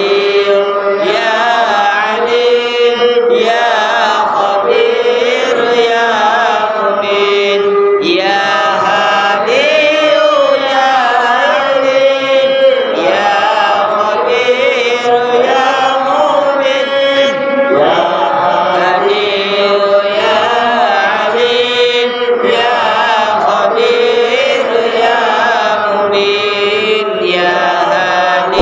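Arabic istighosah prayers chanted melodically, one sung phrase after another with short pauses for breath between them.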